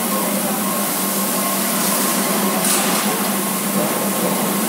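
Steady fan-like rushing noise with a constant low hum, and one faint brief tick about halfway through.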